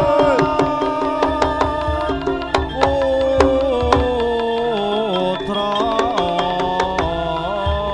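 Live Javanese jaranan music: quick, sharp hand-drum strokes under a sustained melody line that bends and slides in pitch.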